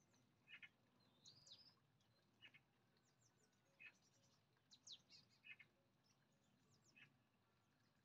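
Near silence with faint, scattered bird chirps and short calls.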